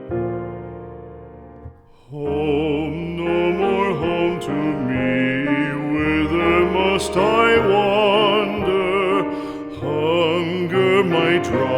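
A piano chord fades away. About two seconds in, a classical singer begins a slow song with strong vibrato over piano accompaniment.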